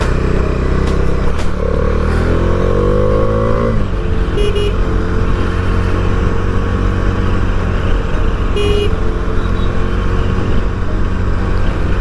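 Bajaj Dominar 400's single-cylinder engine under way, rising in pitch as it accelerates from about a second and a half in, dropping at a gear change near four seconds, then running steady. Two short horn toots, about four and nine seconds in.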